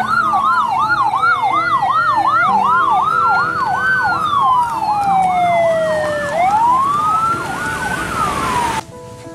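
Two emergency vehicle sirens sounding together: one on a fast yelp, sweeping up and down about three times a second, the other on a slow wail rising and falling every few seconds. Both cut off abruptly near the end.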